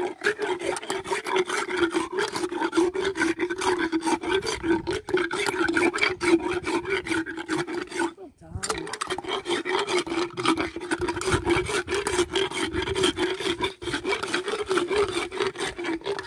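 Equine dental hand float rasping a horse's molars, filing down the sharp edges in rapid, even back-and-forth strokes, with a short break about halfway through.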